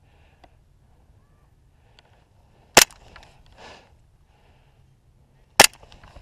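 Two sharp shots from a gas blowback airsoft pistol, about three seconds apart, each followed by a brief faint clatter.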